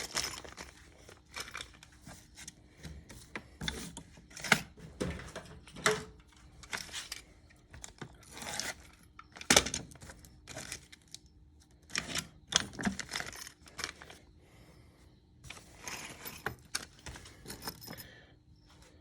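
Packaging of a brake caliper hardware kit being torn open and handled: plastic rustling and tearing, with small metal parts (pad springs and pins) clinking in irregular clicks.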